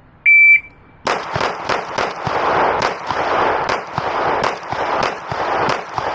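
A shot timer's start beep, then a string of shots from a Glock 9mm pistol, with echo ringing between them. The shots start about half a second after the beep: four quick shots, then pairs and single shots after short pauses.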